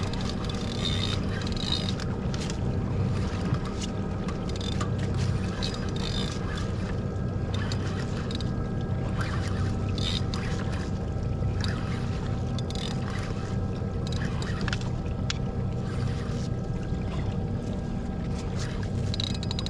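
Small electric trolling motor on a kayak running with a steady hum, over a haze of water and wind noise, with a few faint scattered clicks.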